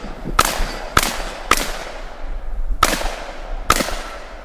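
Five shots from a Glock pistol in .40 S&W, fired one-handed at steel targets: three about half a second apart, a pause of over a second, then two more.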